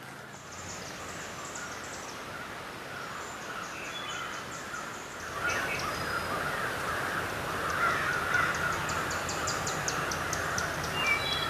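A chorus of birds going crazy, many calling at once in agitation. Rapid high chip notes are mixed with harsher calls, and the chorus grows louder and denser about halfway through.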